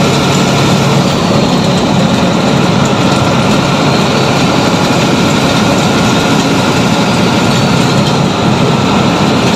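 Steady engine and road noise of a truck driving at highway speed, heard from inside its cab. The noise is loud and even throughout, with no revving or gear changes.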